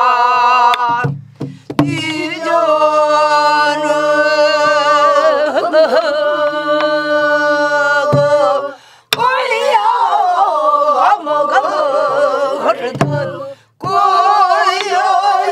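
A Korean folk song sung by a solo voice in the southern (namdo) style: long held notes with a wide, wavering vibrato, broken by a few short breaths, with a few sharp drum strokes between the phrases.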